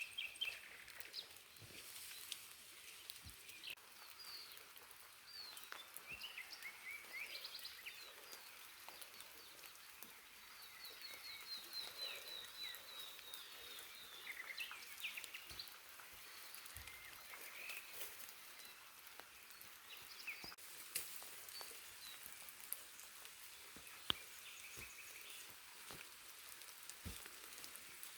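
Several forest birds calling and singing over light rain, with scattered drips and a long run of quick repeated notes near the middle.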